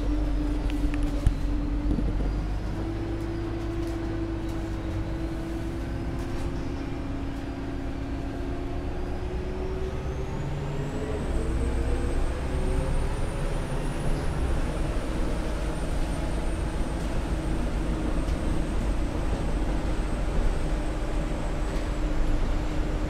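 Heuliez GX 317 GNV city bus's natural-gas engine running with a steady hum, and a faint high whine that climbs about halfway through and then holds. A sharp click about a second in.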